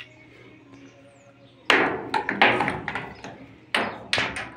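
Loud knocks and clanks on a sheet-steel trailer bed, in one cluster about a second and a half in and another near the end, each with a short ringing tail.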